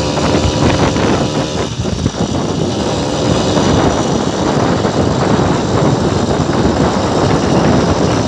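Motorized bicycle's small engine running steadily under way, mixed with wind noise on the microphone.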